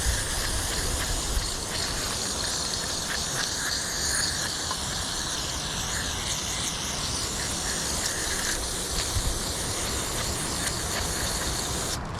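Aerosol carburetor cleaner spraying in a long, steady hiss through the carburetor's passages to blast out gunk, cutting off abruptly near the end.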